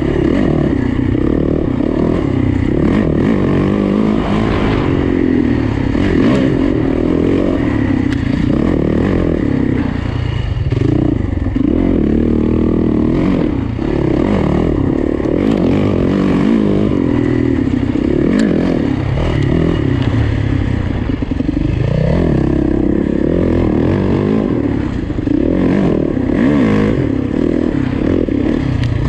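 Yamaha dirt bike engine revving up and down continuously as it is ridden fast through tight woods, heard close up from an onboard camera, with a few short knocks as the bike hits bumps.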